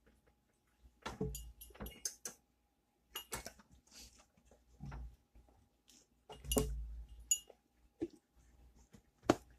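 Kitchen handling noises: scattered clicks, knocks and clinks of dishes and utensils being moved, in several short clusters, with one sharp click near the end.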